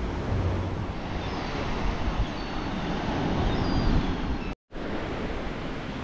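Wind buffeting the microphone over the wash of sea surf, a steady rushing noise with a low rumble. The sound drops out for a moment about three-quarters of the way through.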